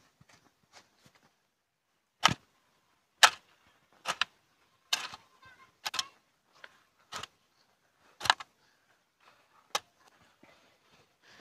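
A long-handled digging tool chopping into and scraping soft, rain-dampened garden soil while a bed is tilled and shaped. Sharp chops come roughly once a second, with softer scraping between them.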